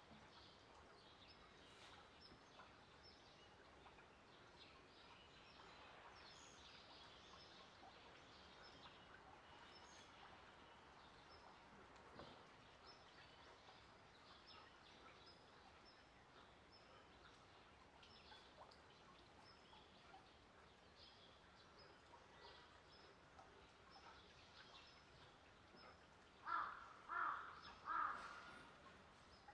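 Quiet outdoor ambience with scattered faint bird chirps. Near the end come three short, loud calls in quick succession, well above everything else.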